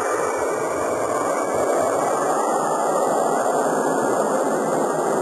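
Jet airliner engines at takeoff power, a steady, even rush of noise.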